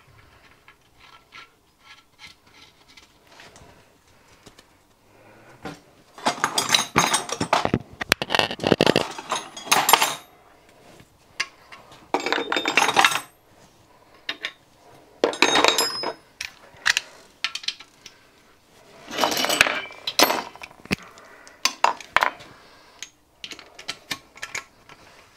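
Socket ratchet clicking in five or so bursts of rapid clicks, the first about six seconds in, as the plug holding the oil pump's relief-valve spring is tightened, with light metal clinks between.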